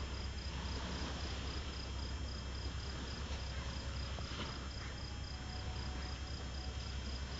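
A cricket trilling steadily in quick, even pulses, high-pitched, over a constant low rumble and hiss.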